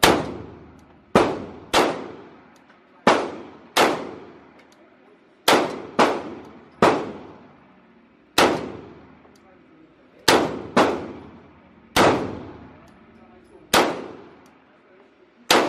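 Pistol fired about fourteen times at an uneven pace, each shot a sharp crack with a ringing echo off the walls of the indoor range.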